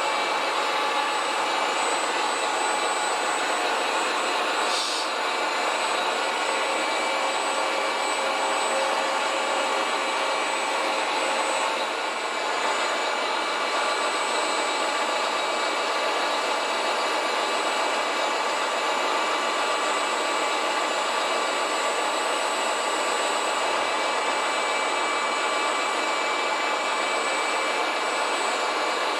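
Electric drive motors and hydraulic pump of RC construction models running in a steady whirring whine, with several fixed high tones over a dense hiss. One of the lower tones stops about twelve seconds in.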